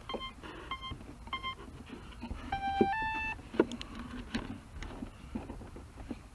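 Electronic beeping from RC model gear: a short single-pitch beep repeating about every two-thirds of a second, which stops about a second and a half in. Then come two longer tones, the second a step higher, followed by several sharp clicks and knocks of handling.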